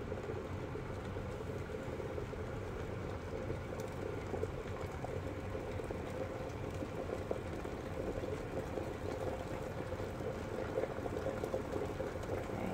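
Glass electric kettle at a rolling boil, the water bubbling steadily.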